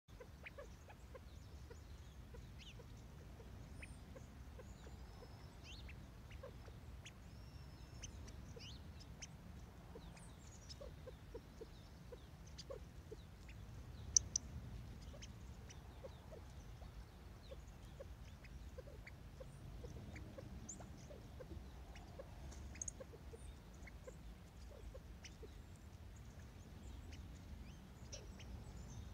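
A California quail pecking at birdseed close to the microphone, with faint short chirps and soft clicks throughout over a low rumble. Two sharp taps about halfway through are the loudest sounds.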